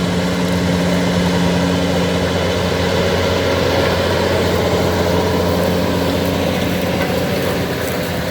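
Large diesel tractor engine running steadily at a constant speed.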